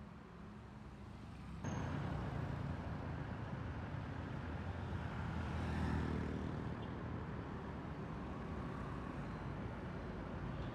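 Road traffic: vehicle engines running. It comes in abruptly about a second and a half in, and grows louder around the middle as a vehicle goes by close.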